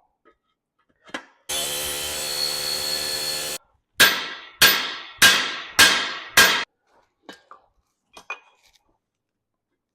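A small pneumatic rivet gun buzzes steadily for about two seconds while driving a hot rivet. It is followed by five ringing metal-on-metal hammer blows on the rivet, evenly spaced a little over half a second apart, and then a few light metal clinks.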